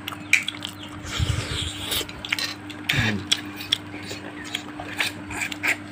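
Spoons and plates clinking in scattered short clicks and knocks during a meal, over a faint steady hum.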